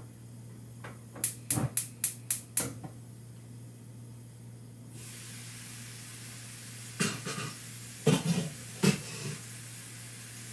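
A quick run of five or six sharp clinks, then about five seconds in the lid comes off a frying pan of simmering polenta and tomatoes and a steady steaming sizzle-hiss starts at once. Around seven to nine seconds a metal spatula knocks and scrapes against the pan, over a low steady hum.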